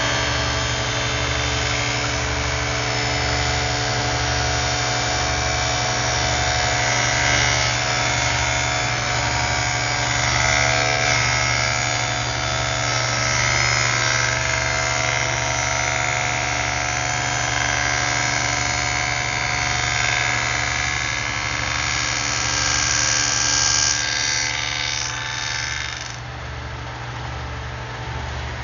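Table saw with a dado stack cutting a rabbet along the edge of a wooden panel, a steady loaded running sound. About 26 s in, the cutting noise drops away and the saw runs on unloaded.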